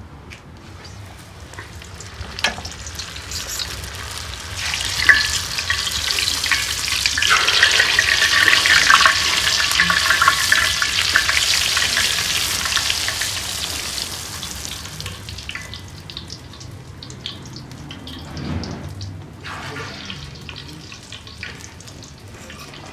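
Pişi, stretched yeast dough, deep-frying in a pot of hot oil: the sizzle builds a couple of seconds in as the dough goes into the oil, is loudest in the middle while it puffs up, then dies down. A few sharp clicks sound early on the way in.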